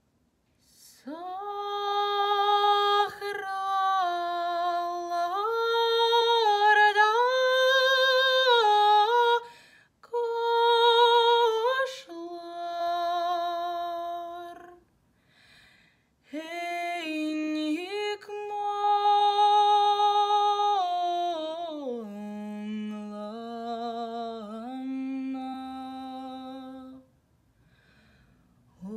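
A woman singing a Tatar lullaby unaccompanied, in long slow phrases of held, gently gliding notes, with breath pauses between them; the last phrase sits lower.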